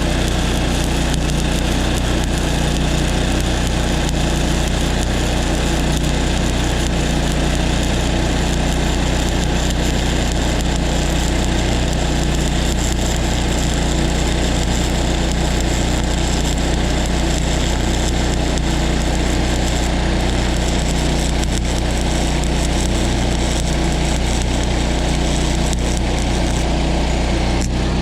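Engine-driven welding machine running steadily, with the hissing crackle of a stick-welding arc over it and a brief break near the end.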